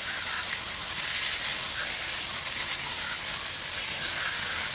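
Garden hose spray nozzle hissing steadily as a jet of cold water rinses the cleaner off a car's alloy wheel and tyre.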